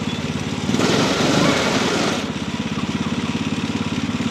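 Kids' Arctic Cat snowmobile engine running with a fast, even pulse, with a louder rushing surge about a second in that lasts about a second and a half.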